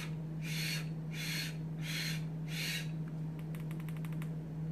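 Five short airy draws through a Herakles Plus sub-ohm tank, about two a second: unfired priming pulls that pull e-juice into the freshly wicked cotton. A quick run of light clicks follows, over a steady low hum.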